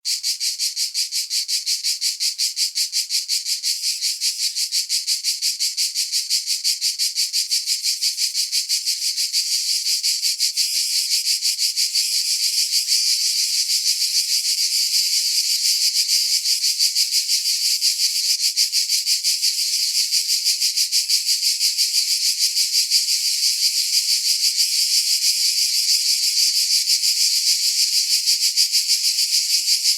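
Cicada buzzing continuously, a high, rapidly pulsing drone that grows a little louder about halfway through.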